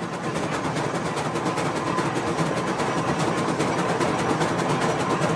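S-scale narrow-gauge model steam train running on the layout: a rapid, even mechanical clatter with a faint steady whine, growing louder over the first couple of seconds as it approaches.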